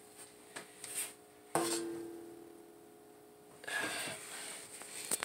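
Handling noises on a sheet-metal fluorescent light fixture. About a second and a half in, a knock leaves the metal housing ringing briefly, and near the end there is a short rubbing scrape against it.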